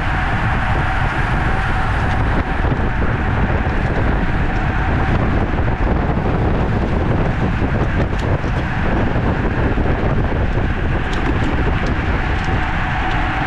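Steady wind rushing over the microphone of a camera riding along in a bicycle race, with a low rumble and a steady hum underneath and a few faint ticks.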